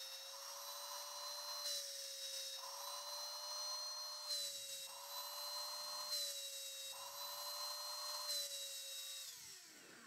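Small electric motor of a cordless handheld vacuum cleaner running with its intake held shut by hand, so it draws less current (about 4.2 A instead of 5.2 A). It makes a steady whine with a rush of air that swells and fades every second or two. About nine seconds in the motor is switched off and its whine falls away as it spins down.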